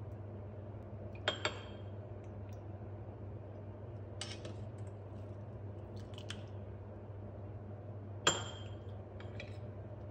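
Metal ladle clinking against a stainless steel mixing bowl and ceramic ramekins as custard mixture is ladled out: a handful of sharp clinks, the loudest about eight seconds in with a short metallic ring, over a steady low hum.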